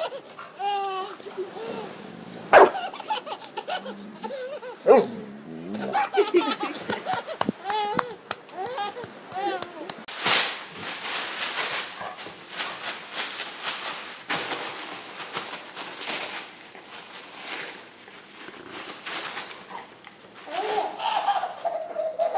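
A baby laughing hysterically in bouncing giggles and belly laughs. About halfway through, the laughter gives way to a stretch of rustling and clattering noise, and a high baby voice returns near the end.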